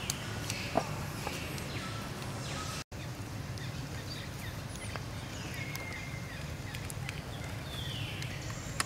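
Outdoor ambience with a steady low rumble and several short, high animal calls that each fall in pitch, spaced a second or two apart, with a few faint clicks. The sound cuts out completely for a moment about three seconds in.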